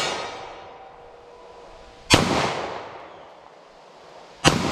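.40 S&W pistol firing 165 gr jacketed hollow points: two shots about two and a half seconds apart, each with a decaying echo. A steel target rings faintly between the shots when hit.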